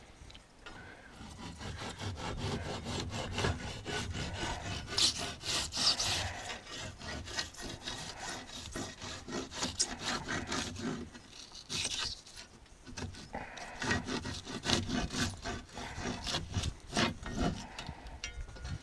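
Handsaw cutting wood in quick back-and-forth strokes, in several runs with brief pauses.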